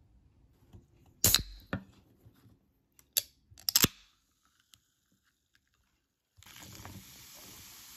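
Mini Coca-Cola aluminium can opened by its pull tab: a few sharp clicks, the loudest with a short hiss of escaping gas as the can pops open. About six and a half seconds in, a steady fizzing hiss begins as the cola is poured out and foams.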